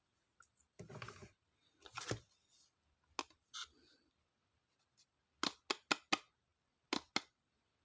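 Stationery and its packaging being handled: paper or plastic rustling twice, then a series of sharp clicks or snips, four in quick succession and two more near the end.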